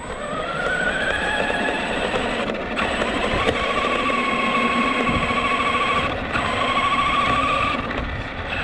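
Arrma Granite 3S BLX RC monster truck's brushless motor and drivetrain whining under way, with tyre and gear noise underneath. The whine rises in pitch over the first couple of seconds as the truck speeds up, then holds steady, dropping out briefly a little past the middle.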